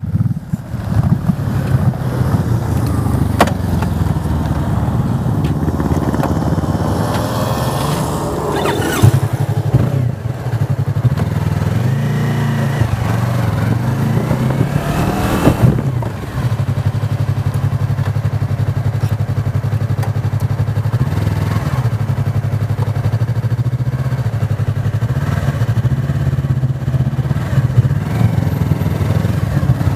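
Yamaha motorcycle engine running steadily at low town speed, heard from the bike itself. The engine note rises and drops about a third of the way in and again about halfway, as the rider accelerates and changes gear.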